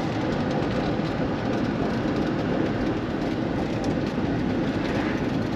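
Steady road noise of a moving car, tyres and engine heard from inside the cabin, with no distinct knocks or changes.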